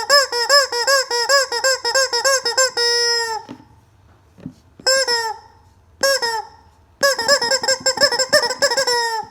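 Squeaky rubber chicken toy squeezed over and over: a fast run of squawks for almost three seconds ending in one longer, falling squawk, then two single squawks, then another fast run near the end.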